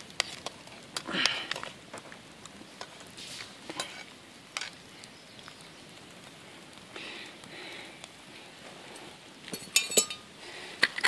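Wood campfire crackling with scattered sharp pops, and a metal spoon clinking against the metal cook pot a few times near the end.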